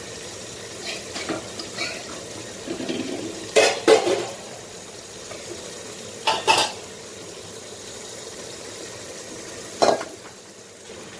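Tomato-and-onion korma simmering and bubbling in a pot while leftover chicken masala is scraped into it, with a spoon clattering against the dish and pot a few times: twice close together about four seconds in, again about six and a half seconds in, and once near the end.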